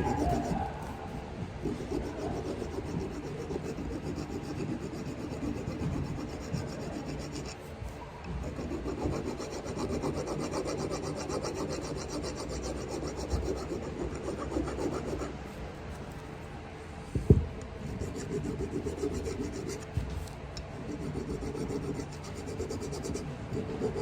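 A file rasping back and forth across a Honda Forza MF08's genuine rear brake pad, chamfering the edges of the friction material. The strokes pause twice, and there is one sharp knock about two-thirds of the way through.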